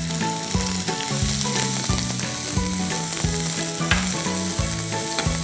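Chopped onion sizzling as it fries in hot oil in a wok, stirred with a wooden spatula.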